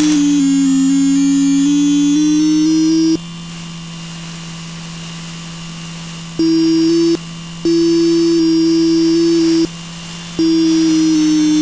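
Electronic tones. A steady low hum runs under a stronger tone that slides slowly in pitch and cuts out and back in several times, with higher tones stepping in pitch above it.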